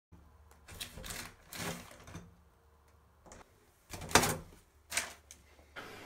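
A few short clattering rattles at a uPVC front door, each lasting a fraction of a second, the loudest about four seconds in.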